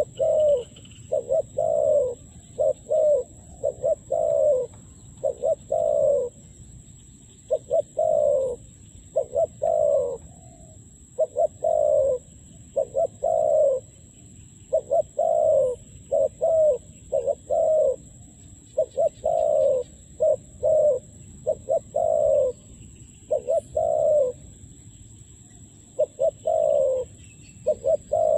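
A dove cooing over and over: short low coos in quick groups of two to four, with brief gaps between the groups. A faint steady high-pitched whine runs underneath.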